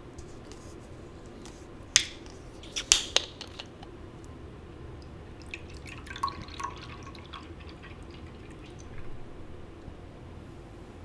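Plastic bottle's screw cap twisted open, with a few sharp clicks as the seal breaks, then a clear drink poured into a glass tumbler for about two seconds.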